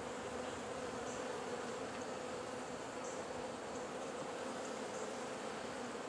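Honey bees buzzing in a steady, even hum over an open top-bar hive, the drone of many wings holding one clear pitch throughout.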